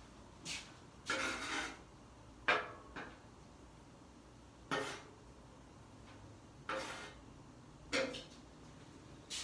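Metal spatula scraping and clanking on the steel top of a Blackstone flat-top griddle, in a series of short strokes with a longer scrape about a second in.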